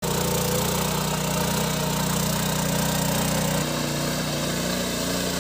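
Walk-behind power tiller's engine running steadily under load as its tines churn through a flooded, muddy field. The engine note shifts slightly about three and a half seconds in.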